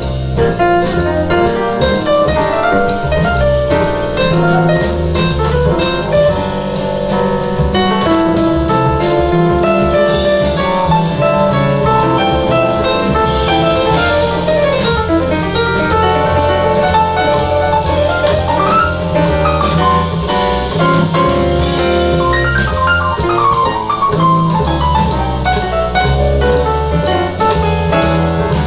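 Jazz with piano and drum kit playing through a pair of floor-standing hi-fi loudspeakers, steady and with a regular beat throughout.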